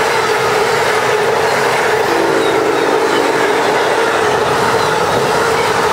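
An Amtrak passenger train's Amfleet coaches passing at speed: a loud, steady rush of wheels on rail, with a steady ringing note throughout.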